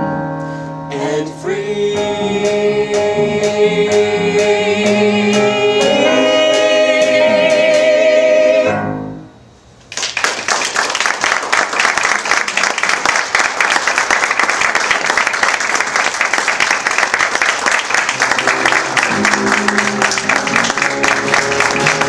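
Cast singing the closing chord of a stage musical number over an accompaniment with a steady beat, the last held note wavering before it ends about nine seconds in. After a short gap, audience applause, with music coming back in under it near the end.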